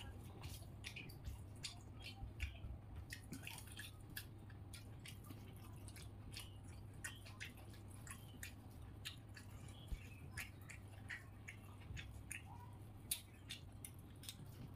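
Quiet, wet eating sounds of a man eating pulao with his fingers: many small irregular mouth clicks and soft chewing, with faint squishing as his fingers mix the rice on the plate, over a steady low hum.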